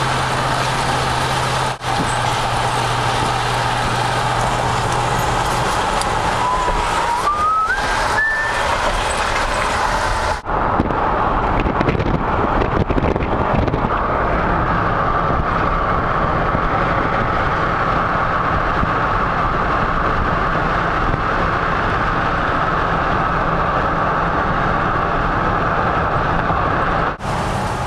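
Steady road and engine noise of a vehicle driving, with a low hum underneath. The sound briefly drops out about two seconds in, about ten seconds in and near the end. A short whistle-like tone rises in steps around seven to eight seconds in.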